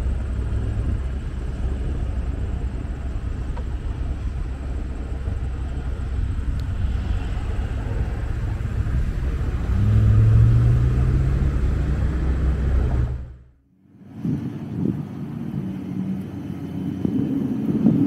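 Outdoor urban ambience: a steady low traffic rumble, with a motor vehicle's engine passing and getting louder about ten seconds in. The sound cuts out briefly near the end and comes back as a different, busier rumble.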